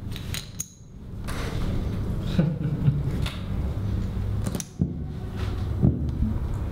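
Poker chips clicking in short, scattered clacks as they are handled and stacked on the table, over a steady low hum.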